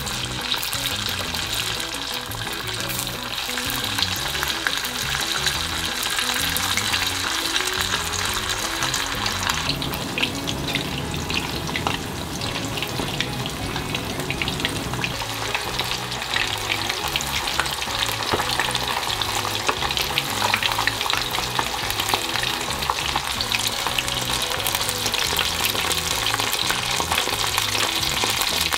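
Chicken karaage pieces deep-frying in a small pot of oil at 180°C: a dense, steady crackle and sizzle of oil bubbling around the pieces.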